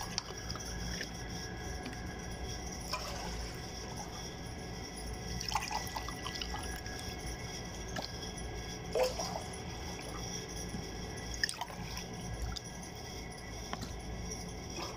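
Water poured from a glass into a saucepan, splashing and dripping in a few short spells with quieter gaps between.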